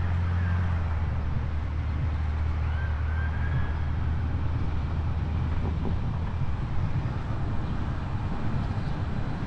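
Steady low rumble of a running vehicle, with a few faint, short rising-and-falling high tones a few seconds in.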